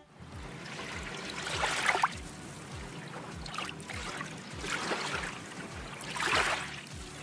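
A splashing, rushing water-like noise that swells and fades in about four surges, over a soft background music beat.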